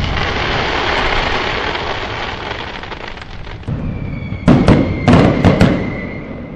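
Aerial fireworks. The dense crackling and hissing of a shell's spark burst fades over the first few seconds, then about five sharp bangs come in quick succession over a low rumble, with a faint steady high whistle behind them.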